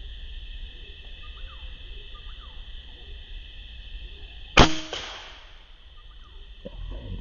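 A single air-rifle shot about four and a half seconds in: one sharp, loud crack with a short ringing tail. A soft rustle or thump follows near the end.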